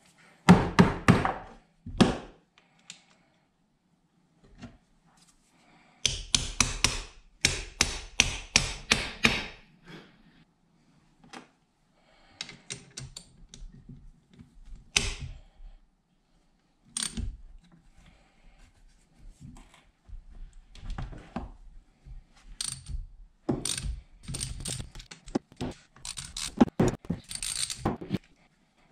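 Hand ratchet clicking in several quick runs while working bolts on a hydraulic drive pump, with metal clinks and knocks as pump parts are handled on the bench.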